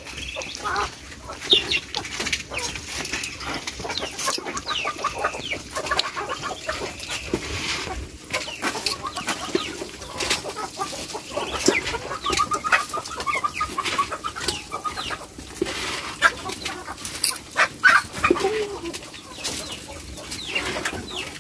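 Feeding poultry calling: clucking and short, high peeping calls scattered throughout, with many short clicks, as ducks, ducklings and chicks peck at scattered feed.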